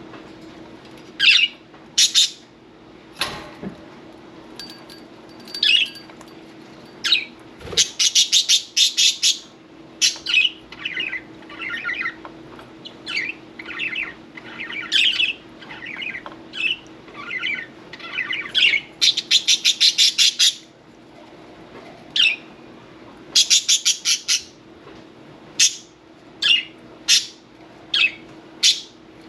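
Budgerigars chirping and chattering, with several bursts of rapid repeated notes, over a faint steady low hum. A soft thump sounds about three seconds in, and another about halfway through the first third.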